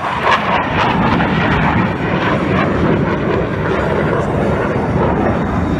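Jet engine noise from a U.S. Navy Blue Angels F/A-18 Hornet flying past with its smoke on: a loud, steady rush.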